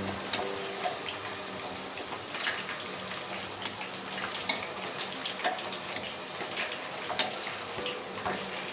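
Marinated chicken pieces deep-frying in hot oil in a kadai, a steady sizzle with scattered crackles and pops, as the pieces are turned over to fry the other side.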